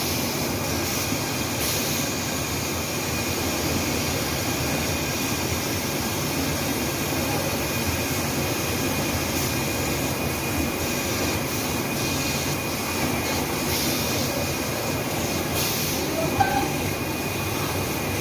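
Seam sealing tape machine running: a steady mechanical whir with a faint constant high whine, brief puffs of hiss now and then, and a small knock near the end.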